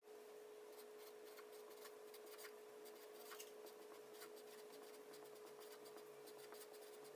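Near silence: faint room tone with a steady low hum and scattered faint light scratches and clicks.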